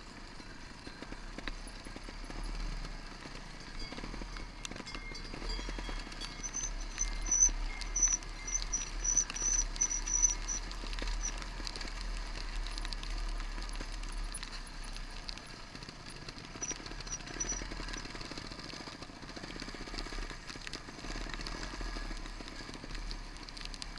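Trial motorcycle ridden down a rough, stony mountain track, heard from a helmet camera: a low engine note with knocks and rattles from the bike over the rocks. A run of high, evenly spaced pips sounds from about six to eleven seconds in and briefly again near seventeen seconds.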